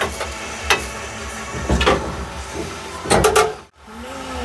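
Sharp metallic knocks and clatter of tools and parts being handled, a few single knocks and then a quick cluster about three seconds in, over a steady low hum. The sound cuts out completely for a moment near the end.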